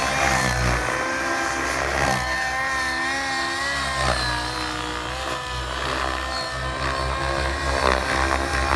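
SAB Goblin 700 nitro RC helicopter's glow engine and rotor running steadily under a governor, its pitch wavering slightly up and down as it flies.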